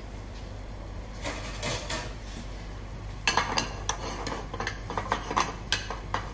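Metal spoon scraping and clinking against a frying pan as bacon pieces are stirred in olive oil. A few light clicks at first, then from about three seconds in a quick, irregular run of clinks and scrapes.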